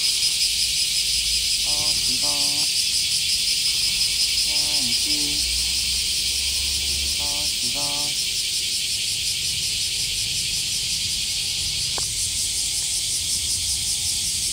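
Steady, high-pitched drone of an outdoor insect chorus.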